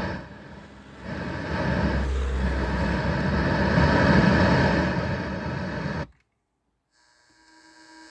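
RCD300 car radio playing a loud buzz with hiss through the car speakers, the interference an aftermarket AUX adapter brings in with a phone plugged in. It cuts off suddenly about six seconds in, and a fainter steady hum comes back near the end.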